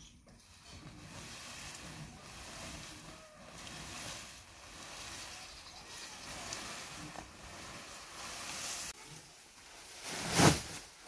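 Fodder stalks and leaves rustling as armfuls are pulled off a cart and carried, with a short, loud rustle near the end as a bundle is handled right by the microphone.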